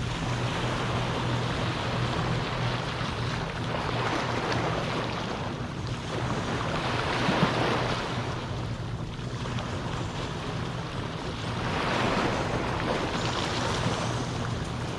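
Calm-sea waves washing onto the beach, the wash swelling and fading every few seconds, over a steady low hum.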